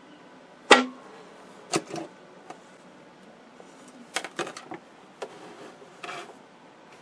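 Bakelite radio cabinet handled and turned over on a workbench: scattered knocks and clatters, the sharpest about three-quarters of a second in, a quick run of them around four seconds in.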